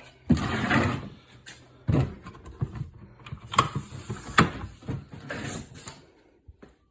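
Plastic DeWalt TSTAK storage box being handled and latched: a run of sharp plastic clicks and knocks with rattling between them, dying away near the end.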